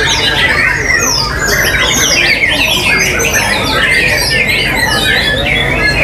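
Many white-rumped shamas (murai batu) singing at once from their contest cages: a dense, unbroken tangle of rapid whistles and quick falling phrases overlapping one another, over a low murmur of the crowd.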